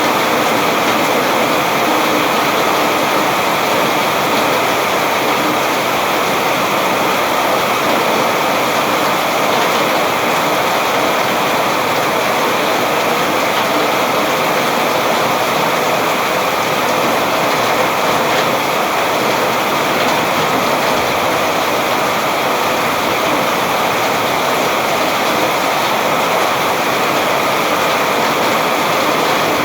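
Steady heavy rain, a dense even hiss of falling water with no let-up.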